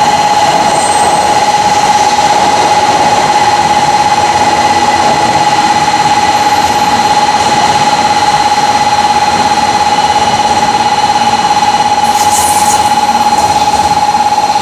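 Shinkansen train pulling into the station platform: a loud, steady rushing running noise with one constant high tone running through it, and a brief high hiss near the end.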